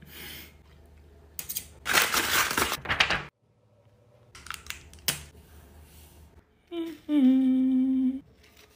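Paper being handled and cut, heard as crinkling and rustling, loudest about two to three seconds in, followed by a few sharp clicks. Near the end a voice holds one steady hummed note for about a second and a half.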